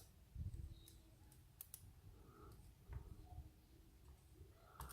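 Near silence broken by a few faint, sharp clicks of small lock parts being handled as the pins and springs come out of the gutted padlock.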